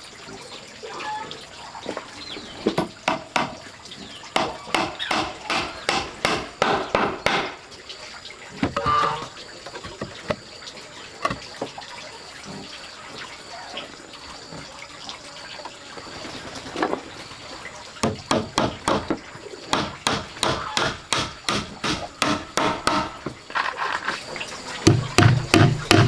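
A hammer driving iron nails into the wooden boards of a hand-built table: runs of sharp knocks, about three a second, a few seconds at a time with pauses between, the run near the end the loudest.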